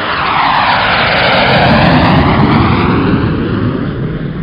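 Propeller aircraft flying past, its engine noise swelling to its loudest about two seconds in and then easing off a little.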